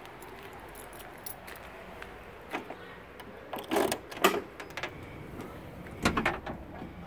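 Keys jangling and the clunks of a car's trunk latch and lid as the trunk is unlocked and lifted open, in a few short bursts in the second half.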